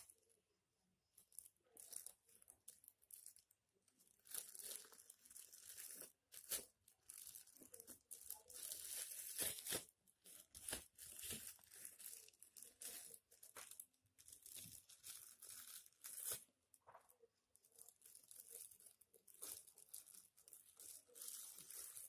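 Plastic snack wrappers crinkling faintly as a baby grabs and shakes them, in irregular bursts of rustling.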